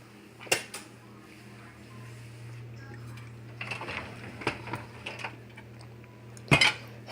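Handling noises at an opened dishwasher: scattered light clicks and a sharper knock near the end, over a steady low hum.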